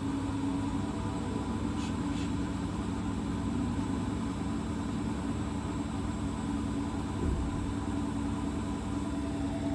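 Hotpoint WT761 Ultima washing machine running with a steady motor hum and drum rumble. There is a dull thump about seven seconds in.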